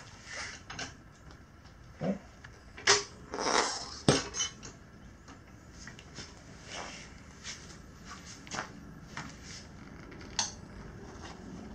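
Tire irons clinking and scraping against a motorcycle wheel rim as a stiff tire bead is levered on. The clicks come at irregular intervals, with two sharper knocks about three and four seconds in and a short scrape between them.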